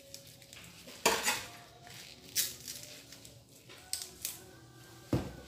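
Cocoyam leaves being stripped and their stalks cut off with a kitchen knife in a stainless steel sink: short bursts of rustling and tearing leaf, with the knife clattering against the steel, the loudest burst about a second in and a low knock near the end.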